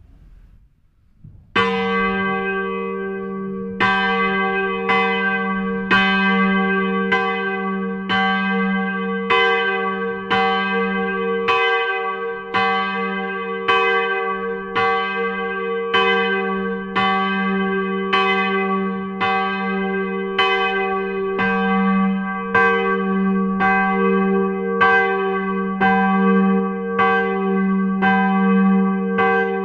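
Swinging 580 kg church bell, cast at Midwolda in 1949 with a strike note of G and swung by a crank drive, ringing as its clapper strikes. The first stroke comes about a second and a half in and the second about two seconds later. After that the strokes come roughly once a second, the bell's note humming on between them.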